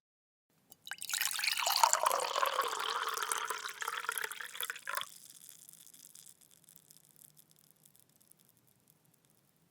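Liquid poured into a glass for about four seconds, the stream cutting off abruptly, followed by a few faint drips and a lingering high ring from the glass.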